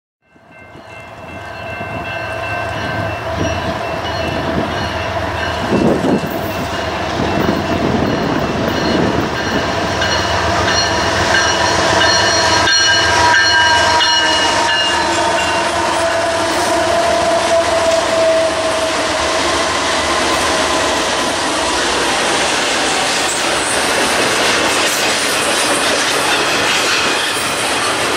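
BNSF freight train passing at speed. Several GE AC diesel locomotives run by with steady whining tones over the engine rumble, then double-stack container cars roll past with their wheels clattering on the rails. The sound fades in over the first couple of seconds.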